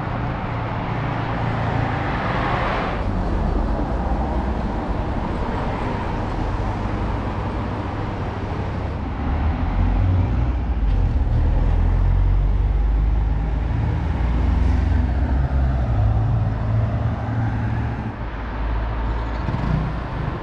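Wind rumble on an action camera's microphone with road traffic noise from a street, louder from about halfway through.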